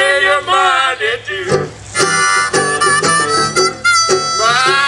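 Old-time folk duo music: banjo plucking under reedy, gliding horn lines blown through a shared double-mouthpiece horn with a large bell, with a small brass horn taking a held melody line later on.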